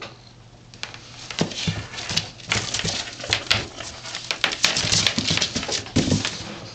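A Savannah kitten scrambling and pouncing on a hard floor while it plays with a wand toy: a quick run of scratchy claw scrabbles, rustles and taps that starts about a second and a half in, with a heavier thump near the end.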